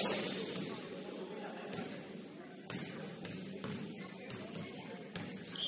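Basketball game in a gym: indistinct voices echoing in the hall, broken by several sharp knocks of the ball or feet on the court and short high squeaks, one of them near the end.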